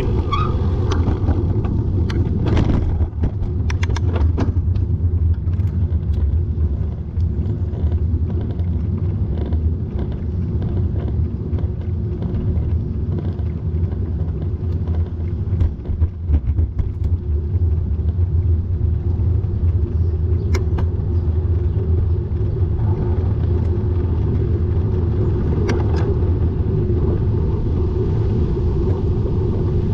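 Steady low rumble of wind and road noise from riding a bicycle. A few brief clicks or rattles come about two to four seconds in and again past the twenty-second mark.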